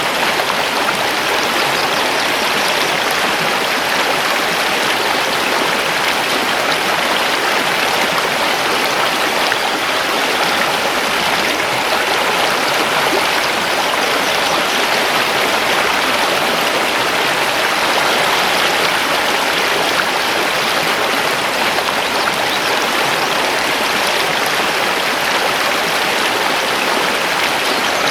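Mountain river flowing over stones: a steady, even rush of water.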